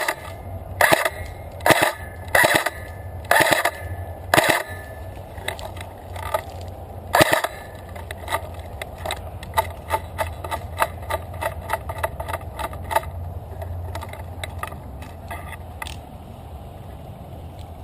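Footsteps crunching through dry forest floor: loud, evenly spaced steps at first, then quicker, lighter steps that fade out about three-quarters of the way through, over a steady low rumble of wind on the microphone.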